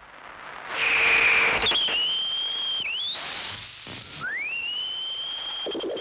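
Electronic whistling sound effect of a TV-like gadget being switched on and tuned in: a burst of hiss, then a high whistle that glides up and holds steady, dips and rises, breaks off about four seconds in, and glides up again to a steady high whistle.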